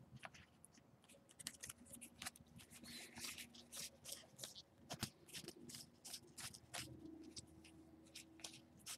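Faint rustling and clicking of a stack of trading cards being handled and slid through by hand, in many small, irregular ticks.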